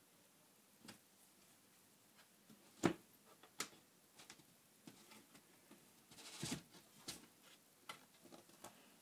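Faint scattered knocks and clicks of a wooden enclosure panel being handled and lifted off its box frame. The sharpest knock comes about three seconds in, and there is a short scraping rustle a little past six seconds.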